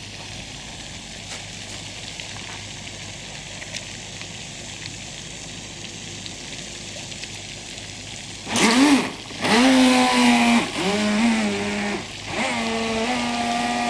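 A Traxxas Blast RC speedboat's stock brushed electric motor, overdriven on a 4S LiPo, whining up in several throttle bursts that rise and fall in pitch, then holding a steady high whine near the end; before it, about eight seconds of low outdoor hiss.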